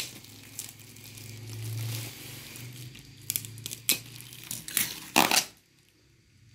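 Clear plastic wrapping crinkling and rustling as a wrapped umbrella pole is handled, with a few sharp clicks and knocks, the loudest about five seconds in, over a low steady hum. It goes quiet near the end.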